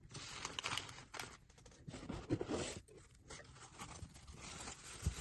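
Packaging being handled: faint, irregular rustling and scraping with a few soft knocks, one of them near the end.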